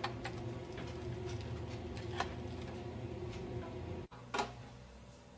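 A few sharp clicks over a steady low hum: a USB flash drive being plugged into a laptop and its keys being tapped. The hum cuts out about four seconds in, and one more click follows.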